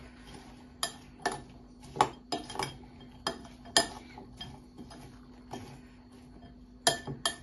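Metal spoon clinking against a glass mixing bowl while tossing chopped onion and tomato: irregular sharp clinks, several in the first four seconds and a quick cluster near the end.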